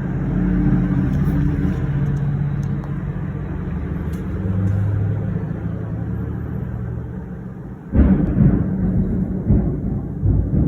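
Thunder rumbling low and long, with a new, louder peal breaking in sharply about eight seconds in and rolling on.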